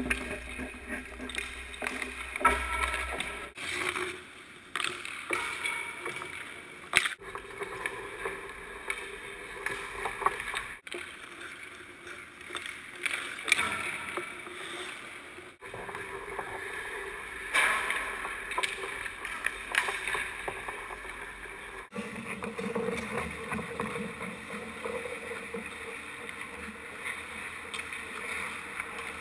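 Hockey skates scraping and carving across rink ice, with a few sharp cracks of a stick shooting the puck.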